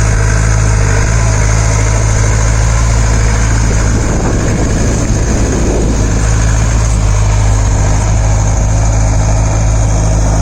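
Off-road jeep engine running steadily at a constant, low drone, with no change in speed.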